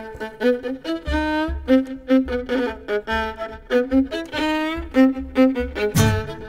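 Fiddle playing a melody with vibrato over a low accompaniment that pulses about twice a second. Near the end a sharp attack brings in fuller, lower accompaniment notes.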